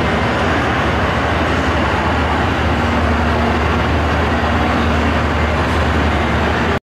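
Steady mechanical running noise with a low hum, cutting off abruptly near the end.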